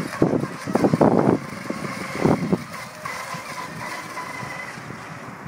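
Small homemade electric RC catamaran running fast across the water, its motor a thin high whine that fades out near the end. Wind buffets the microphone in the first half.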